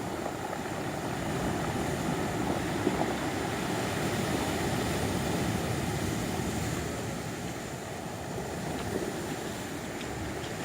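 Sea surf washing on the shore, a steady rush that swells for a few seconds and then eases.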